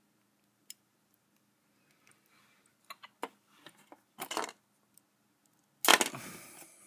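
Scattered light clicks and taps of small tools and a plastic action figure being handled, then a loud clatter with a short jingling tail about six seconds in as a folding utility knife with a keychain is picked up off the table.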